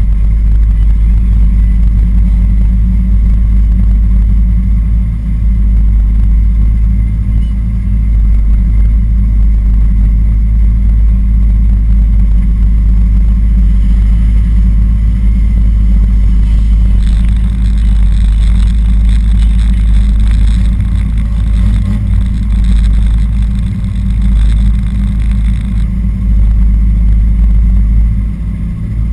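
Car engines running, with some revving, over a heavy low rumble. From a little past halfway, a higher-pitched sound joins for about nine seconds.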